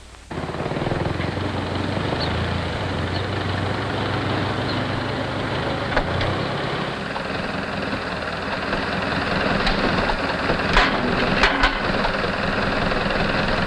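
Farm tractor engine running steadily, with a low hum and a few sharp clicks near the end.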